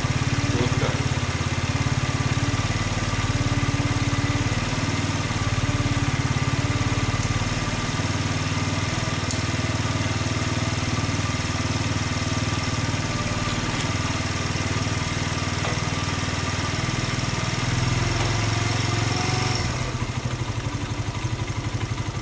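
Small motorcycle engine idling steadily just after a cold start. It turns somewhat quieter about three seconds before the end.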